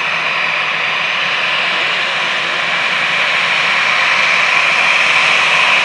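Airbus A321 jet engines running at taxi power as the airliner taxis closer: a steady whine and rush that grows slightly louder from about halfway through.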